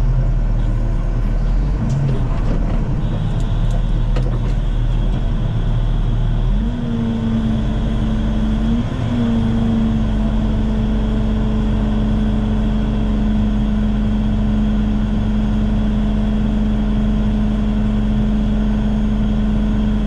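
Tractor engine running steadily, driving the augers of a feed mixer wagon. About seven seconds in, a steady hum rises briefly in pitch and then holds.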